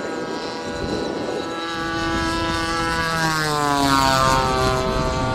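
Twin 80 mm electric ducted fans of a Freewing A-10 Thunderbolt II RC jet whining in flight; the whine grows louder and drops in pitch a little past halfway, the pitch fall of the jet passing by.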